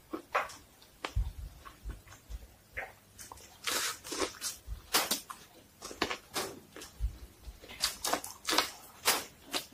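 Biting kernels off a cob of sweet corn and chewing them: an irregular run of wet crunches, squishes and mouth clicks, with a few dull low thumps.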